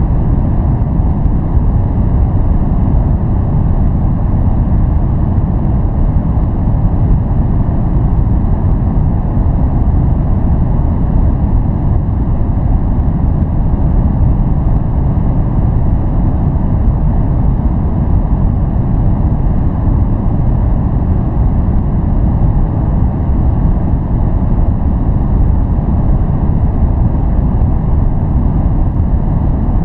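Loud, steady noise track with no change: a deep rumble with only a faint hiss above it.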